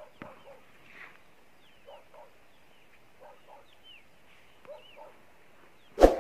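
Faint animal calls in pairs, repeating about every second and a half, with thin high chirps above them. A sudden loud thump comes about six seconds in.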